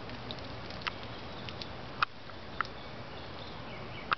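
Squirrel gnawing on a peanut shell: a handful of short, sharp cracking clicks, the loudest about halfway through and at the very end, over a steady outdoor background hiss.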